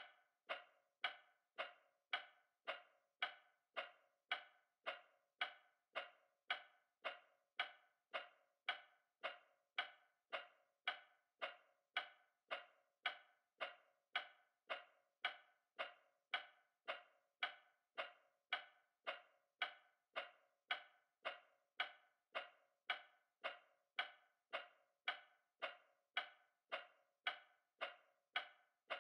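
A clock ticking steadily, a little under two even, sharp ticks a second.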